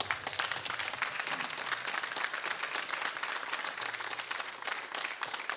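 Audience applauding: many hands clapping, dense and even in level throughout.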